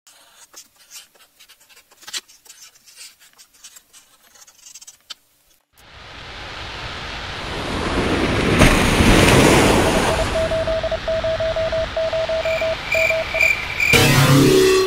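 Faint crackling and clicks, then a rush of static-like noise that swells up and is overlaid with short repeated beeps, ending in a loud burst near the end.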